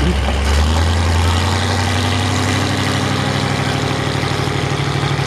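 Mud truck's engine idling through open straight-pipe exhaust, a loud low rumble that settles into a regular pulsing lope in the second half.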